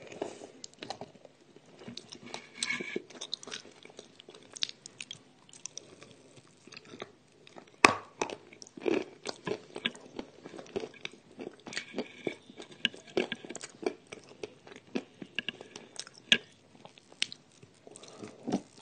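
Crunchy chewing and biting of a hard piece of edible Ural clay, a run of irregular crackles and crunches with one sharp crack about eight seconds in.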